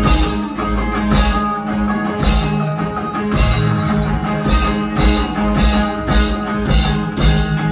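Live rock band playing an instrumental passage, led by electric guitar over bass and drums.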